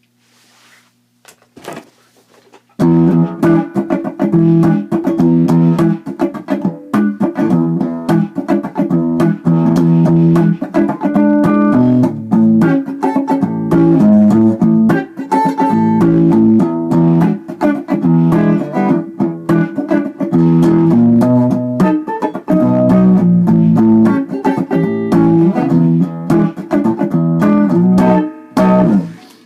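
Guitar playing a blues tune, busy plucked notes coming in about three seconds in after a few faint taps.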